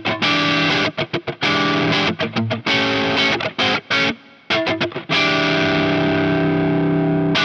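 Covenant Tradition T-SP electric guitar with humbucker pickups, played through heavy distortion. It plays a riff of short, choppy chords cut off by quick stops, then lets a single chord ring out from about five seconds in.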